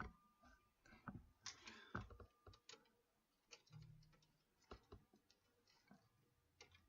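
Faint, scattered clicks and light taps of wire and small computer parts being handled while wire is fitted to hold a water cooler in place.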